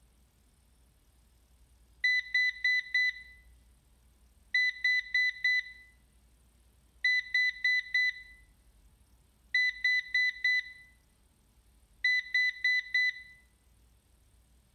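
Ecovacs DEEBOT N79S robot vacuum beeping its error alert: five groups of four short, high beeps, a new group every two and a half seconds. This is the 20-beep error signal, which the owner takes for a battery fault.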